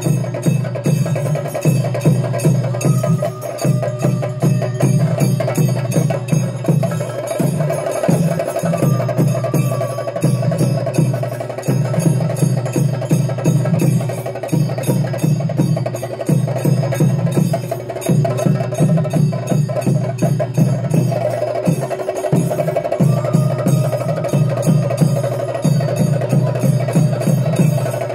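Kerala temple percussion ensemble playing fast: dense, rapid stick strokes on drums with a metallic cymbal ring over them, in a steady pulse that swells and dips every couple of seconds.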